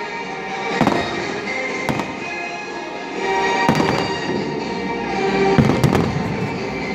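Aerial firework shells bursting overhead in a series of sharp booms, several in a few seconds, with music playing underneath.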